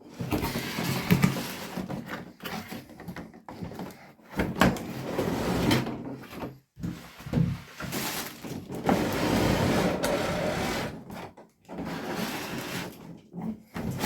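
Toy packaging being handled and opened: irregular rustling and scraping with sharp knocks and clacks.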